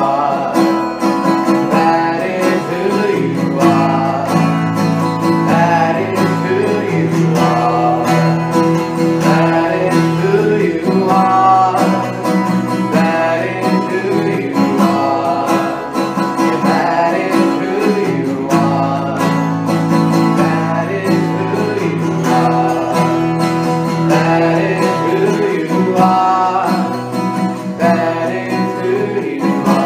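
Live worship song: an acoustic guitar strummed over an electric bass guitar, with a man singing.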